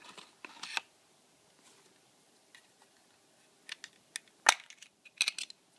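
Sharp plastic clicks and snaps as a battery is fitted into a wireless alarm sensor's casing, a handful of separate clicks with the loudest about four and a half seconds in.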